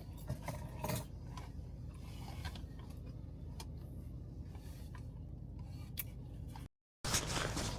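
Faint scattered ticks and small clicks over a low steady background hum. The sound cuts out completely for a moment near the end.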